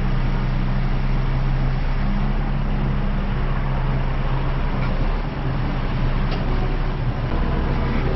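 A heavy vehicle's engine running steadily at a constant speed, with an even, low hum.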